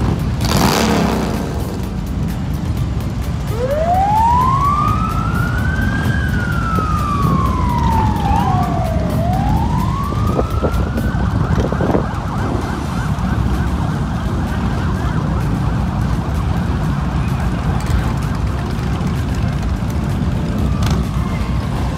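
A siren a few seconds in: it winds up, drops back down, then climbs again and holds a high steady wail, over a loud low rumble.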